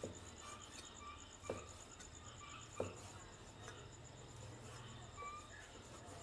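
Cleaver slicing raw beef on a wooden chopping board, the blade knocking sharply on the board three times in the first three seconds. A steady, high, fast-pulsing chirring runs underneath.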